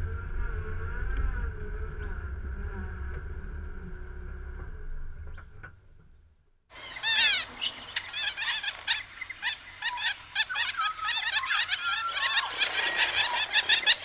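A small four-wheel drive driving over rough bush ground: a low engine and road rumble that fades out about five and a half seconds in. After a second of silence, small finches start chirping in a dense chorus of short, quick calls that grows busier toward the end.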